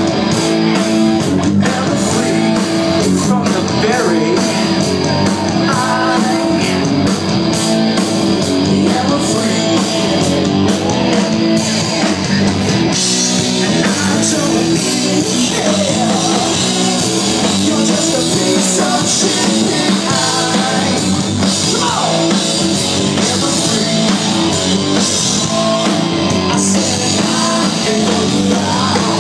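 Live rock band playing loud: electric guitar, drum kit and singing, heard from the crowd in a club.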